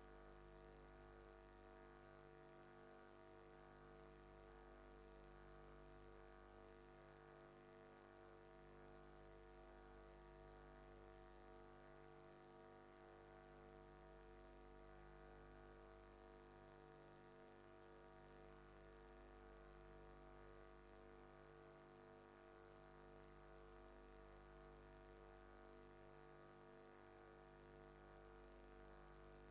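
Near silence: only a faint steady electrical hum with a thin high whine, unchanging throughout.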